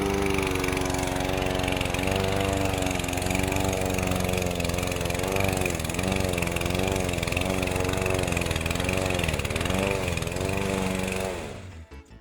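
Petrol lawn mower engine running steadily, its pitch dipping and recovering about once a second midway through. It cuts off shortly before the end.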